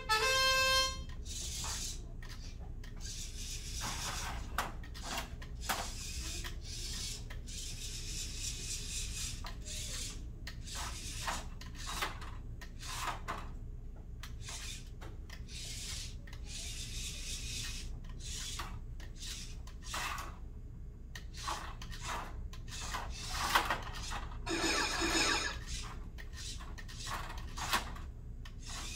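A match-start tone from the timer sounds once at the very start. After it comes the clicking, knocking and plastic clatter of a small VEX IQ robot driving about the field and handling plastic risers, busiest about 23 to 26 seconds in.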